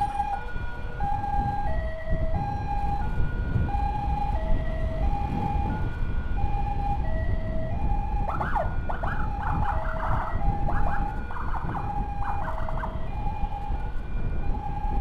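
Emergency siren sounding a two-tone hi-lo pattern, stepping between a higher and a lower note about once a second, over the steady rumble of a moving motorcycle and wind. About eight seconds in, a second siren joins with a fast warbling yelp for several seconds.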